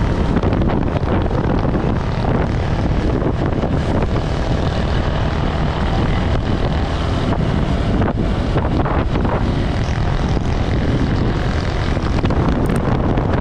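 Motorcycle engine running steadily at road speed, with heavy wind buffeting on the microphone.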